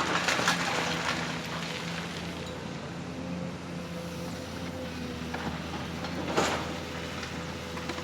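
Construction machinery running steadily, with crackling like loose material moving in the first second and a single sharp knock about six seconds in.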